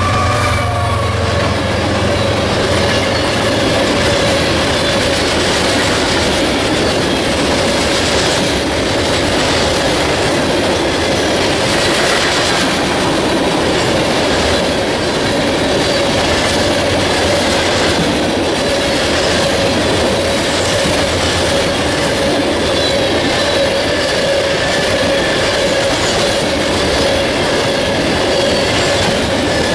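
Coal hopper cars of a freight train rolling past: a steady rumble of wheels on rail with clickety-clack over the rail joints and a thin, steady squeal from the wheels.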